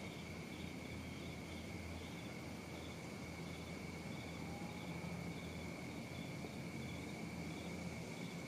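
Crickets chirping at night: a steady high trill with a second, fainter call pulsing about twice a second, over a faint low hum.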